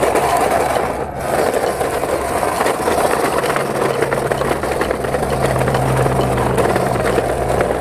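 Plastic toy dump truck pushed by hand over brick paving, its wheels rolling with a steady, dense rattle while the die-cast cars heaped in its tipper bed jostle and clatter.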